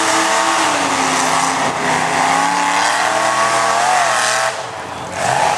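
Pickup truck's engine running at high revs under heavy load as it pushes through a mud bog, its pitch wavering up and down. It eases off about four and a half seconds in.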